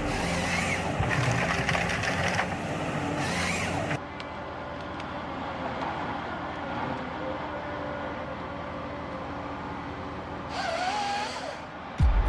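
Heavy machinery engine running, with an abrupt cut to a quieter, steady hum about four seconds in and a short wavering squeal near the end.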